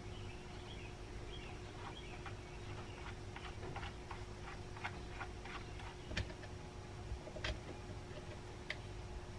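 Scattered light clicks and taps of small parts being handled on an electric chainsaw's plastic housing as its chain tensioner is worked, over a faint steady hum.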